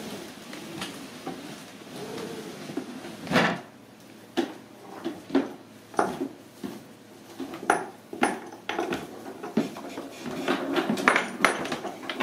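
A dresser sliding down wooden stairs on a homemade ramp, creaking and scraping, with a heavy thump about three seconds in. After that, footsteps coming down the wooden stairs give a string of uneven knocks that grow busier near the end.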